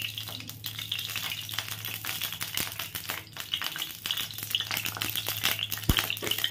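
Mustard oil crackling and spitting in a hot kadai as it heats, a dense run of small pops. Under it is a steady low hum from the induction cooktop, and a single low thump comes near the end.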